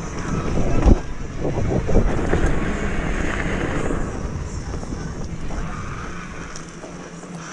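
Supercycle fat-tire mountain bike riding fast down a dirt singletrack: tyre rumble and the bike rattling over bumps, with wind buffeting the microphone. Two hard jolts come about one and two seconds in, and the noise eases off toward the end.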